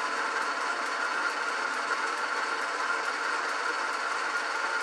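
1929 South Bend lathe running in back gear while a carbide-tipped bit takes a cut in mild steel: a steady mechanical running noise with a faint, even ticking about four or five times a second.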